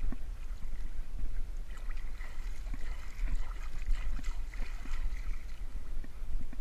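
Water sloshing and lapping around a small boat, over a steady low rumble, with no single clear event.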